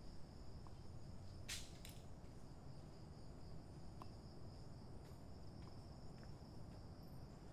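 Night insects calling in one steady, unbroken high-pitched drone. About a second and a half in there is a short rustling scrape, with a smaller one just after, and a few faint ticks.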